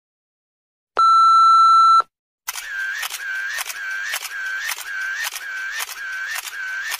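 A single steady electronic beep lasting about a second, like a censor bleep. Then a repeating electronic sound effect, about two pulses a second, each a sharp click with a short wavering tone.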